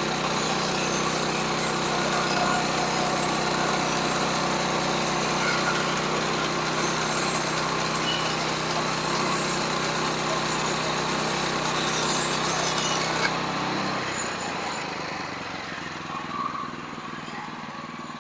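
Sawmill running under power, its engine holding a steady note over a dense hiss of sawing. Near the end the hiss cuts off suddenly and the engine drops in speed and loudness.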